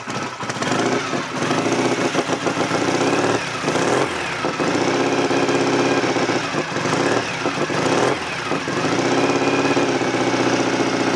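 Norton Commando 750's air-cooled parallel-twin engine running on a single Mikuni carburettor through peashooter silencers, with quite a bark. The revs dip and rise several times as the throttle is blipped. The engine is still cold, so it runs a little lumpy.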